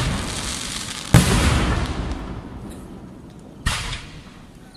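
Aerial fireworks shells bursting overhead: a sharp boom about a second in, the loudest, and a second one a little before the end. Each fades away over a second or two.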